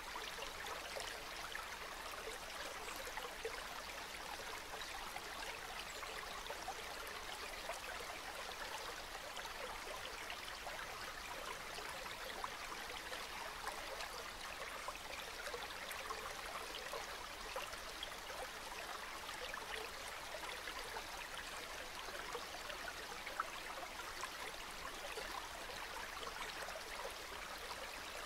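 Calm river water flowing steadily, a light, unbroken babble and trickle without deep rumble.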